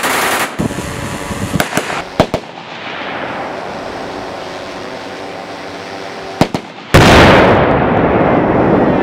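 A burst of automatic gunfire cuts off about half a second in, followed by a few single shots. About seven seconds in, a large explosion goes off, the loudest sound here, its blast rolling on and fading slowly.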